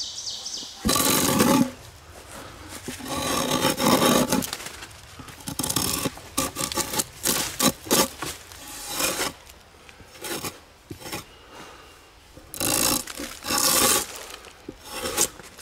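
Drawknife strokes scraping and peeling bark off a log: a series of rasping pulls on wood, some long and some short and quick.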